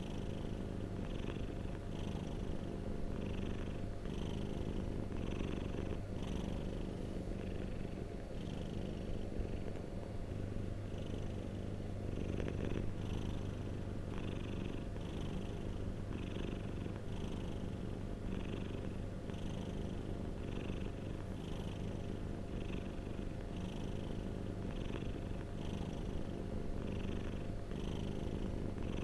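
Domestic cat purring steadily and close up, the purr pulsing about once or twice a second with its breathing in and out.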